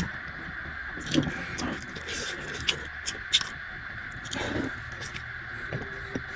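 A person eating noodles close to the microphone: scattered wet mouth clicks and short chewing and slurping sounds, over a steady background hiss.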